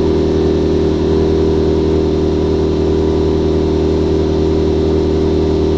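Toyota 2ZZ-GE 1.8-litre four-cylinder in an MR2 Spyder running on the stock ECU at steady, held revs, heard from the driver's seat. The air-fuel ratio reads a bit lean.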